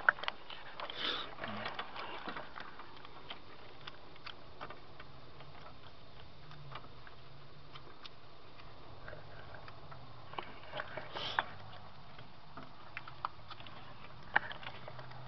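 Handling noise from working on RV wiring: scattered light clicks and rustles as hands move wires and a corrugated plastic wire loom, with two short rustling bursts, about a second in and about eleven seconds in.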